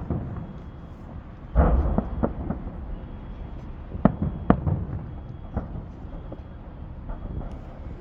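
Fireworks salute shells bursting overhead. A loud boom comes about one and a half seconds in, followed by a rumbling roll. Sharp bangs land around four and four and a half seconds, with scattered smaller pops between.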